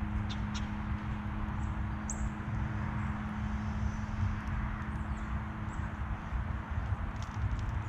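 Steady low outdoor rumble with a constant hum, and a few short, high bird chirps and clicks scattered through, the clearest one about two seconds in.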